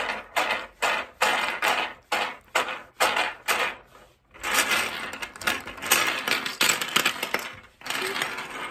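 A handful of small plastic toy figures rattled in rhythmic strokes, about three a second, then clattering in a longer, denser run across a wooden tabletop.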